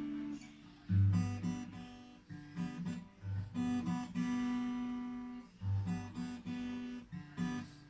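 Acoustic guitar playing chords in an instrumental break, each chord ringing on, with a low bass note sounding at several of the chord changes.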